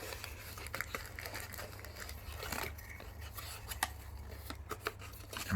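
Scattered light clicks, taps and scrapes of cardboard packaging being handled as a small inner box is worked out of a smartwatch box, over a low steady hum.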